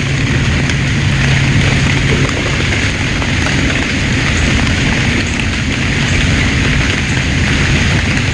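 Steady rain falling, over a low continuous rumble, with a low hum that stops about two seconds in.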